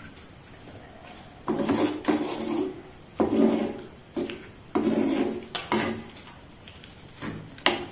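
Wooden spatula scraping and stirring a thick prawn pickle around an earthenware pot. Quiet at first, then a string of rasping strokes about half a second each, with short pauses between them.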